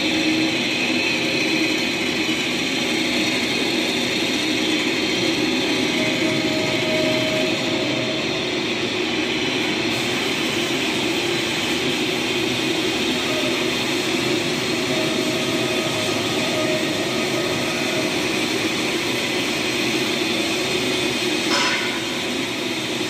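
Vertical turret lathe running steadily while turning the bore of a large bronze sleeve, giving a constant mechanical drone. A short knock comes near the end.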